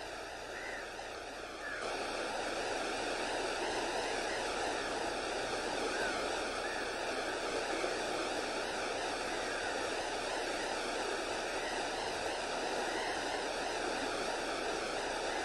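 Steady rushing of a flowing river, an even noise that steps up in level about two seconds in and then holds steady.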